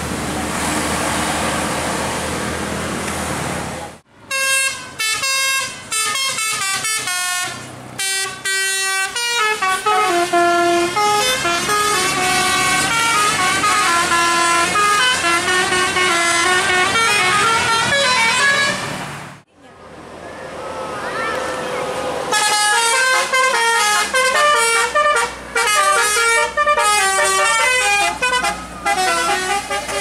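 Bus engine and road noise at first, then Indonesian telolet multi-tone bus horns playing quick tunes of stepping notes, in two long runs with a short break in the middle.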